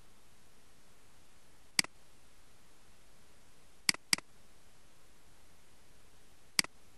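Computer mouse button clicks: four sharp clicks, with a quick pair about four seconds in, over a faint steady hiss.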